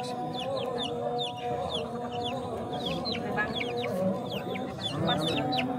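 Young chicks peeping: a quick, continual run of short, high, falling peeps, over a steady tone underneath.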